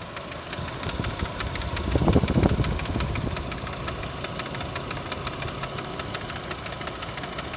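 Renault Captur's electric radiator cooling fan running at its higher speed, knocking against its own mount in a rapid, insistent tec-tec-tec, louder about two seconds in. The fan is out of balance because its rear bronze bushing is worn.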